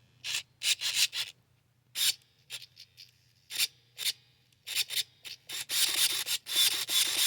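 Throttle servo driving the carburettor linkage to full throttle and back in a run of short raspy strokes. The strokes come sparsely at first and crowd together near the end.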